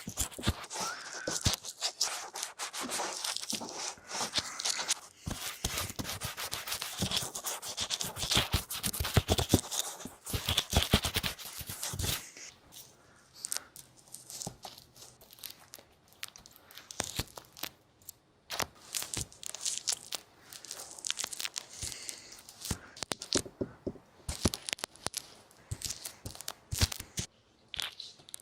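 ASMR trigger sounds made close to the microphone: crinkling, rubbing and scratching with many small clicks and taps. Dense and louder for roughly the first half, then sparser and quieter.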